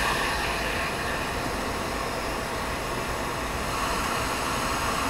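Glassworking bench torch flame burning with a steady hiss while a glass rod is heated in it.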